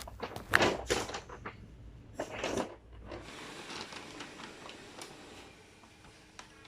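A large paper bag being opened and handled, with crinkling rustles and knocks through the first three seconds, the loudest about half a second in, then quieter handling noise.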